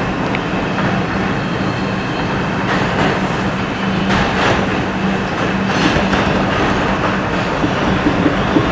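R142 subway train running through a tunnel, heard from inside the front car: a steady rumble of wheels on rail under a low steady hum, with a few sharp clacks from the track.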